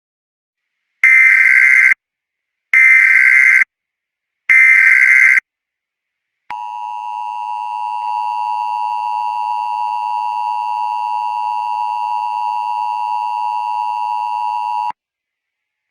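Emergency Alert System tones: three separate data bursts of about a second each, then a few seconds later the steady two-tone attention signal, held for about eight seconds before it cuts off.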